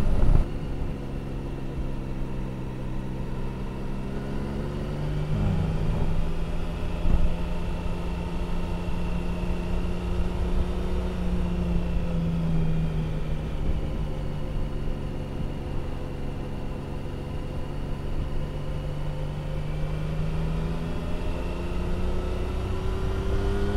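Triumph Tiger 1050's three-cylinder engine running at a steady cruising pace, with wind rush on the microphone. The engine note dips briefly about five seconds in and climbs near the end.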